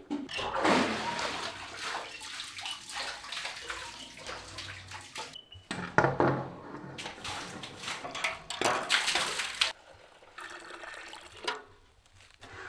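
Water splashing and sloshing in irregular bursts, the loudest near the start and about six and nine seconds in.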